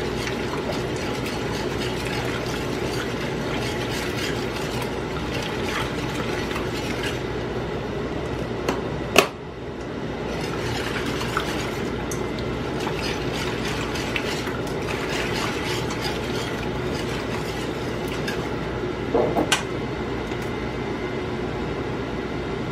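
Beef stroganoff gravy simmering in a pan, a steady bubbling with small irregular pops. Two sharp clinks of metal on the pan, about nine seconds in and again about ten seconds later.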